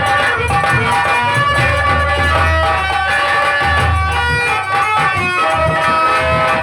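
Instrumental Birha folk music: hand drums play a steady beat under a melody of held notes.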